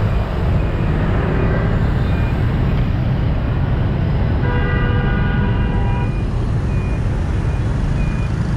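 Dense motorbike and car traffic, engines running with a steady low rumble. A vehicle horn sounds for about a second and a half around the middle.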